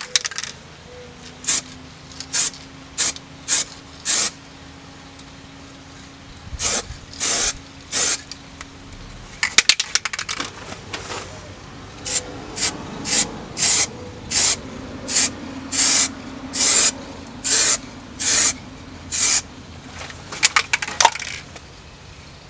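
Aerosol can of green zinc phosphate primer sprayed in about twenty short hissing bursts, in groups with a quick run of them in the second half, laying on a primer coat. A few sharp clicks sound around ten seconds in and again near the end.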